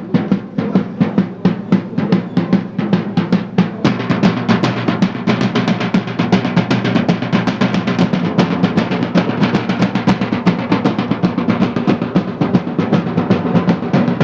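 A group of parade side drums played together in a marching beat, loud. The strokes are spaced out for the first few seconds, then become a dense, continuous roll from about four seconds in.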